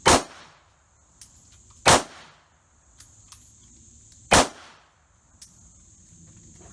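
Three gunshots about two seconds apart, then a longer gap. A steady high insect buzz runs underneath.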